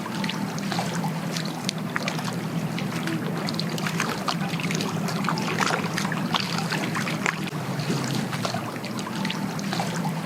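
Choppy, wind-driven lake water slapping and splashing irregularly against a boat or dock, over a steady low hum.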